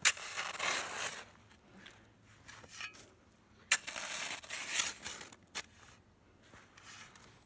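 Snow shovel digging into packed snow: two main strokes, each starting with a sharp crunch and followed by about a second of crunching and scraping, with a few lighter scrapes between them.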